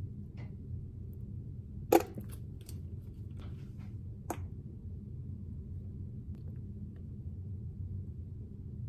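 Plastic condiment squeeze bottles, mayonnaise then mustard, squirting onto sausages in buns. A sharp click about two seconds in is the loudest sound, followed by a few fainter clicks and sputters and another sharp click a little past four seconds, all over a steady low hum.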